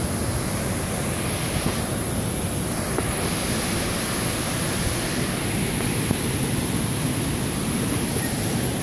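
Steady rushing water, an even hiss and rumble with no breaks.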